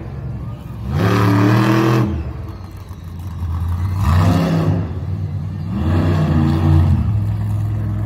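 Monster truck engine revving hard three times, each rev rising in pitch and falling back, then settling into a steady run near the end.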